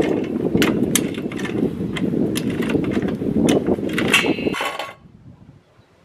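Red hydraulic floor jack being pumped by its long handle to lift a car: a run of clicks and clanks over a low rushing, stopping suddenly about four and a half seconds in.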